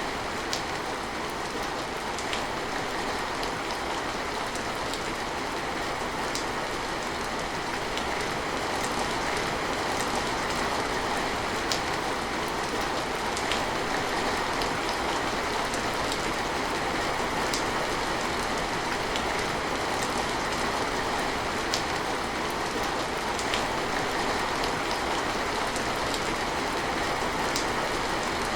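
Steady rain falling, a constant hiss with scattered sharp drop ticks.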